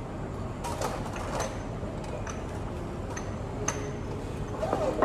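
Room ambience: a steady low hum with several light clicks and short high clinks scattered through it.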